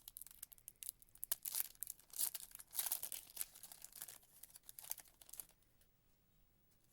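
A Panini Prizm football retail pack's wrapper being torn open and crinkled, a run of irregular crinkles that stops about five and a half seconds in.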